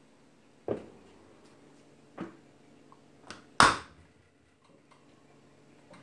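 Built-in Bosch dishwasher's door being closed after the programme is started: a few knocks and rattles, then one loud thud about three and a half seconds in as the door shuts.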